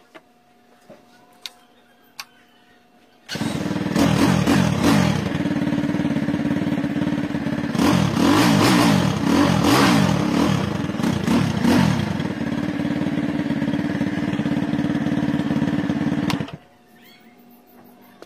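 SYM Bonus 100cc motorcycle's single-cylinder engine starts about three seconds in, runs and is revved up and down several times, then cuts out abruptly near the end. A few sharp clicks come before it starts.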